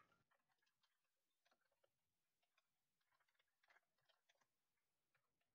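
Near silence, with very faint, irregular clicks of a computer keyboard being typed on.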